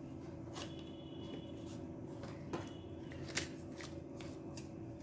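Paperboard packaging insert and a clear silicone phone case being handled and lifted out of a box: soft paper rustling with a few light clicks and taps.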